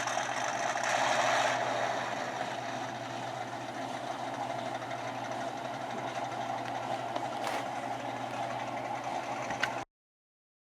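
Recorded tank engine sound running steadily with a rough mechanical clatter, a little louder about a second in, then cutting off suddenly near the end.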